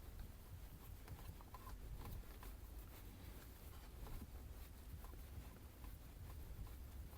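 Faint small clicks and rubbing from a plastic shifter knob being screwed clockwise onto the shift lever by hand, over a low steady hum.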